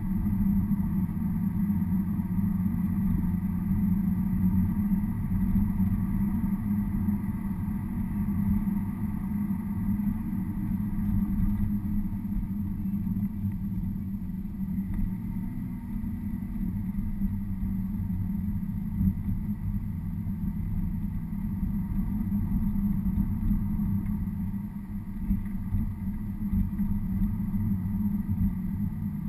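Car driving, heard from inside the cabin: a steady low drone of engine and tyre noise.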